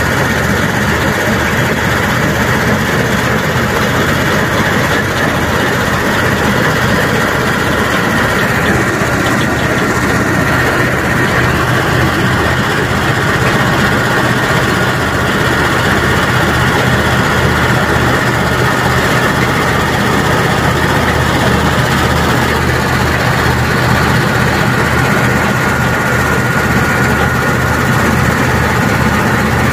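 The diesel power-pack engine of a multi-axle modular girder transporter running steadily, with a fast low throb and a steady high whine over it.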